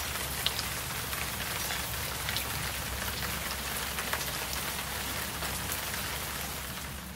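Steady rain falling: an even hiss with scattered louder drop taps.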